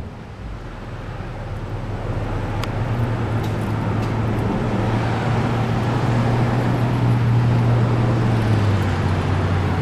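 Motor vehicle engine running with a low steady hum, growing steadily louder over several seconds and easing a little near the end.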